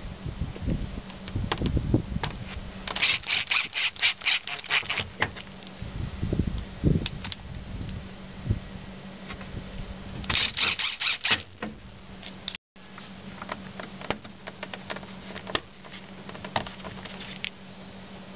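Hand work on mechanical parts: scattered clicks and knocks, low thuds, and two runs of rapid clicking, over a steady low hum.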